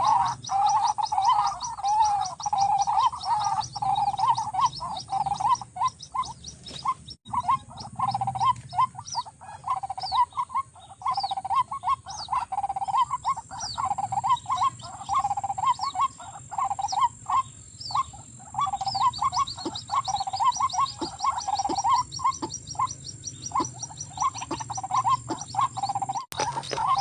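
White-breasted waterhen (ruak-ruak) calling over and over, a continuous run of croaking 'ruak' notes, with fast, high chirping from other birds or insects behind it.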